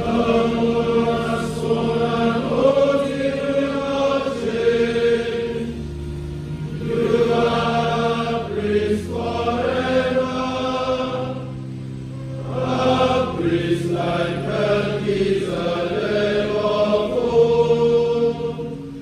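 A choir of men's voices singing a slow Benediction hymn in a chant-like style, long held notes in phrases of a few seconds each, with steady held notes of an accompanying instrument underneath.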